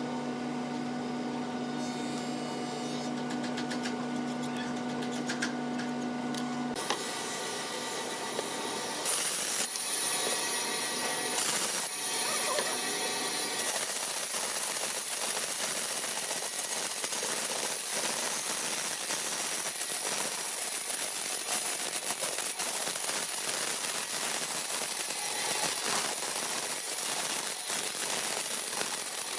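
A steady machine hum with several fixed tones for the first few seconds. From about nine seconds in, a bandsaw cuts through a wooden board with a steady hiss over its motor.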